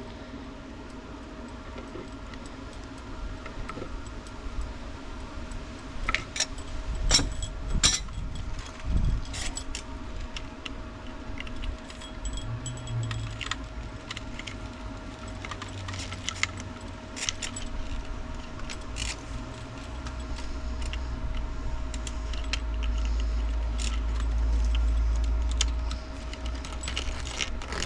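Irregular metallic clicking and light jingling of small hardware and hand tools being handled during electrical hookup work, with a cluster of sharper clicks early on. A low rumble swells up and fades near the end.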